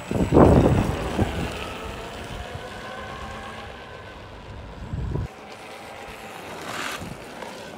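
Electric off-road skateboard on air-filled tyres rolling over asphalt, its motors whining. Loudest as it passes close about half a second in, then fading as it rides away.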